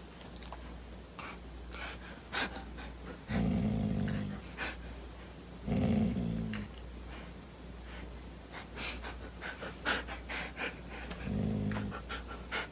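A dog growling low in three short bouts, with scattered light clicks between.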